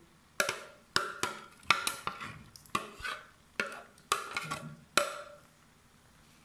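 Metal utensil knocking against an aluminium cooking pot while layering biryani: about ten sharp, irregular clinks, each with a short ring.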